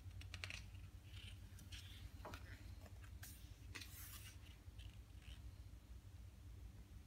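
A glossy page of a large hardcover photo book turned by hand: faint paper rustling and soft clicks, with the sharpest swishes about three and four seconds in as the page turns over and is smoothed flat.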